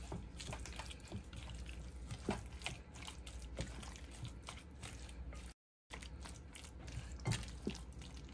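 Silicone spatula folding a wet, mayonnaise-bound crab cake mixture in a glass bowl: soft, irregular wet squelches and small clicks. The sound cuts out completely for a moment a little past halfway.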